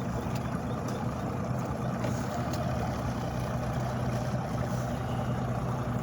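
Yamaha 250 hp outboard motor on a bass boat running at a steady speed, an even hum with no revving.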